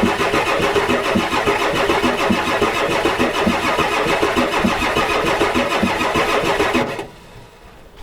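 Ford 7.3L IDI V8 diesel being cranked over by its starter with an even pulsing rhythm, turning over without firing. It stops cranking about seven seconds in. The owner takes the failure to fire on ether for no compression in some cylinders.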